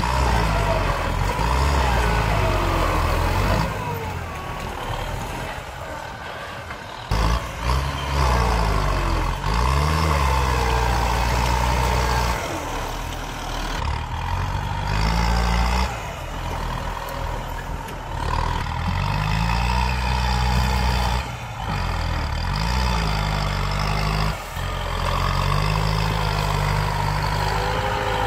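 Kubota M8540 tractor's four-cylinder diesel engine working hard as the tractor pushes earth with a front blade. Its pitch rises and falls again and again as the load and throttle change.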